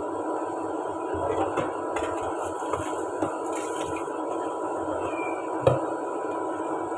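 Hand dishwashing at a kitchen sink: light clinks and knocks of dishes and a crinkle of a plastic bag, with one sharper knock a little over halfway through. A steady background hum runs underneath.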